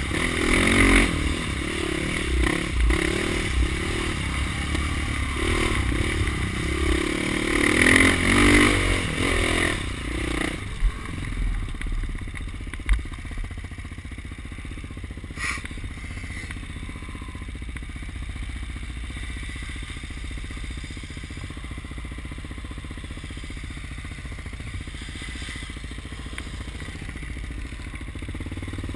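Dirt bike engine running and revving under changing throttle, heard from the bike itself, with clatter and scraping from the rough trail. About ten seconds in it drops to a quieter, steady low sound, with a few sharp knocks.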